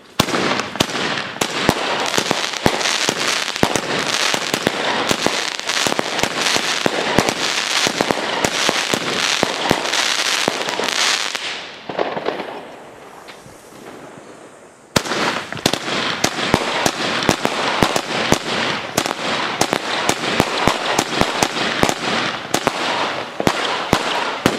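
16-shot consumer firework cakes firing: a rapid run of sharp shots and bursts over dense crackling. It stops about twelve seconds in, and after a short lull a second volley begins abruptly about fifteen seconds in.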